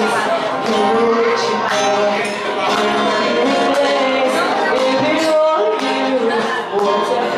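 Live acoustic pop cover: a woman singing into a microphone over a strummed acoustic guitar.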